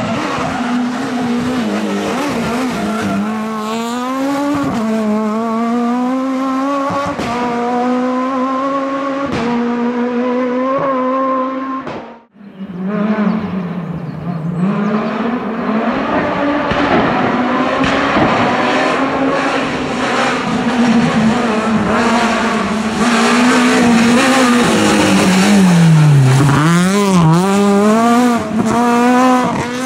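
Renault Clio S1600 rally car's high-revving four-cylinder engine at full throttle, its pitch climbing in steps and dropping at quick gear changes. The sound breaks off for a moment about twelve seconds in and resumes with the car driving hard again; near the end the engine drops sharply in pitch as it slows for a corner, then revs back up.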